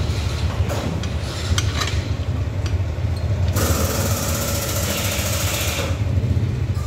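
Workshop noise: a steady low hum, with light metallic clicks as the rear brake caliper bracket is handled. A loud hiss starts about halfway through and cuts off about two seconds later.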